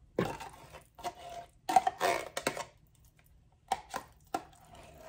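A utensil scraping and knocking against a mixing bowl as pumpkin puree is spooned in: a handful of irregular clinks and scrapes, some with a short ring.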